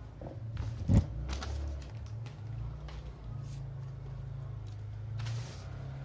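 A hand handling a newspaper-wrapped parcel on a table: a single knock on the tabletop about a second in, then crinkling newspaper as the wrapped package is gripped and lifted, the crinkle loudest near the end. A low steady hum runs underneath.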